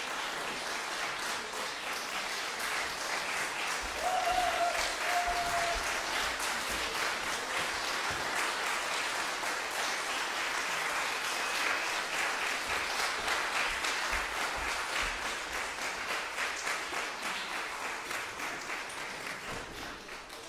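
Audience applauding in a concert hall, dense steady clapping with a brief cheer from one listener about four seconds in, fading away near the end.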